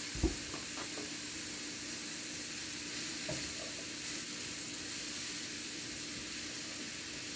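Onions and mushrooms sizzling steadily in hot olive oil in a pan, with a single knock just after the start and a few light clicks of stirring.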